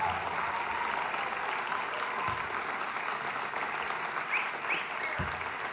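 Concert audience applauding steadily, with two short low thumps, one about two seconds in and one near the end.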